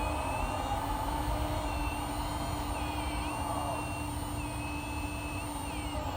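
Electric hydraulic pump of a 1/14-scale RC excavator whining steadily, its pitch stepping and sliding up and down as the controls load the hydraulics.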